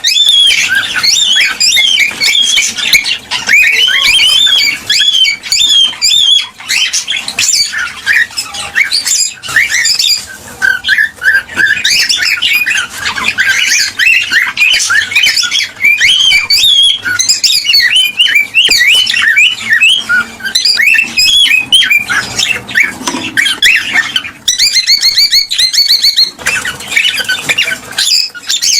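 Cockatiels chirping and squawking in a dense, unbroken chatter of short, quickly rising and falling high notes, several calls overlapping at once.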